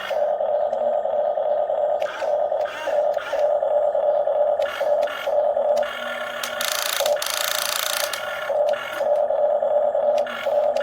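Electric motors of a radio-controlled grapple excavator whining in short runs that stop and start again as the controls are worked, with scraping from about six to eight seconds in as rocks are handled.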